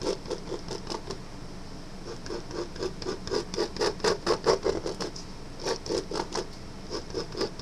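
Marker tip scratching on paper in quick back-and-forth sketchy strokes, about four a second with brief pauses, as an outline is darkened.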